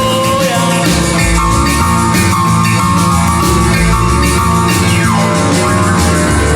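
Rock band recording playing, with held notes over bass and drums and a downward pitch slide about five seconds in.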